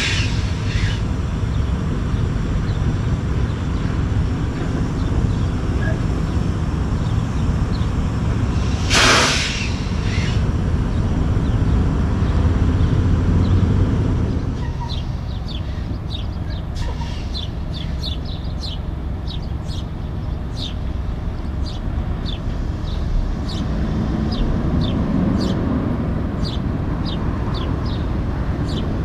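Diesel semi truck hauling a B-train of pneumatic bulk tanker trailers, its engine running with a low rumble, and a short loud burst of air hiss about nine seconds in. From about halfway the engine is more distant and birds chirp repeatedly.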